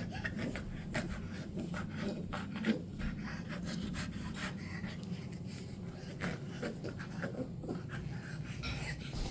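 Dog panting steadily, with scattered small clicks throughout.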